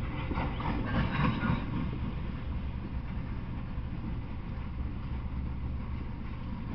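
Freight train of tank cars rolling past, wheels on rails making a steady low rumble, with a louder burst of noise in the first couple of seconds.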